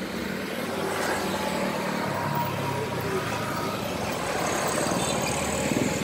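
Road traffic: a vehicle engine running, its low rumble growing gradually louder from about two seconds in.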